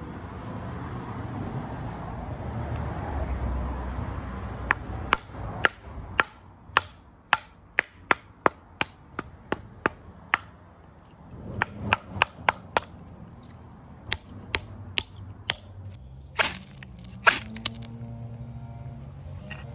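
A wooden baton strikes the spine of a Reiff F4 bushcraft knife, driving the blade through a small round of wood to split it. It gives a long run of sharp, separate knocks at an uneven pace, then two harsh scrapes near the end.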